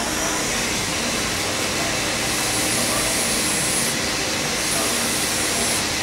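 Steady rushing noise with a faint high whine that comes in about two seconds in and drops out twice.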